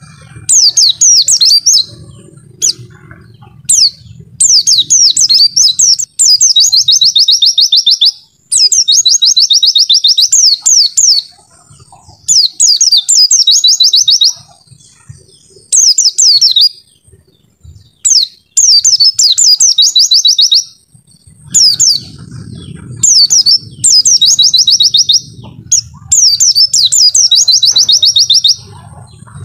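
White-eye (pleci) singing loudly: quick phrases of high chattering notes running into fast trills, each a second or two long, repeated over and over with short pauses between them.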